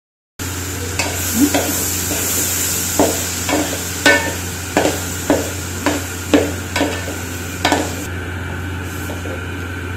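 Wooden spatula stirring and scraping cooked rice and vegetables around a metal pot, about a dozen scrapes roughly every half second, over a steady hiss. The scraping and the hiss stop together near the end.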